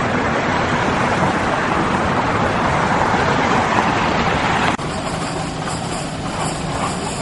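Road traffic noise, swelling as a car passes close by. It cuts off abruptly near five seconds to a quieter, steady low engine hum from a fire engine idling with its lights on before responding.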